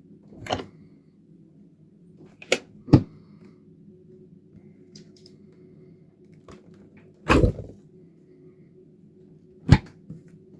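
Refrigerator and freezer doors being opened and shut: a string of short thuds and clicks from the door seals and latches, a quick pair near the start, a longer one past the middle and a sharp one near the end, over a steady low hum.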